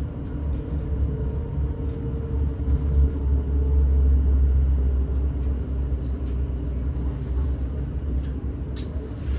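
Interior rumble of a passenger train running, heavy and low, with a faint steady hum that drifts slightly lower in pitch as the train slows on its approach to the station.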